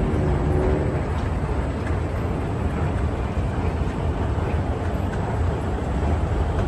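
Steady rumble of heavy street traffic at a busy multi-lane intersection.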